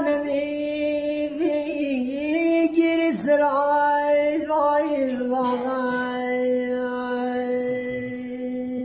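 A man singing sherveh, the southern Iranian folk lament, unaccompanied. His voice winds through ornamented, sliding phrases, then settles on one long held note from about five seconds in.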